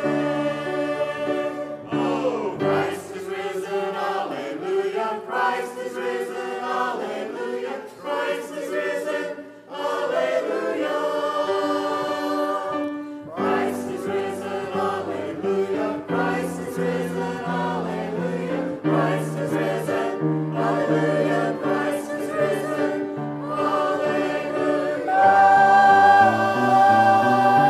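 Church choir singing an anthem over an instrumental accompaniment, swelling louder near the end.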